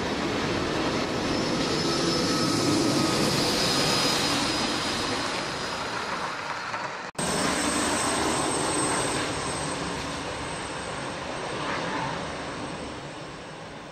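Lima H0-scale SNCF TEE model railcar running on the layout track: the small electric motor whines and the wheels roll over the rails, growing louder as it approaches and passes. The sound breaks off abruptly about seven seconds in, then resumes and slowly fades.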